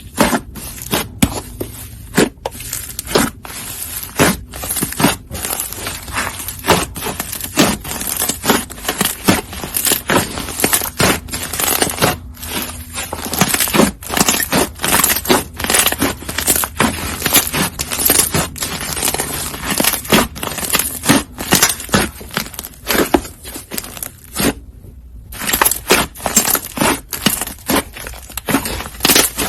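Slime being squeezed and poked by hand, giving a dense, continuous run of sharp crackles, clicks and pops, with a short pause about 25 seconds in.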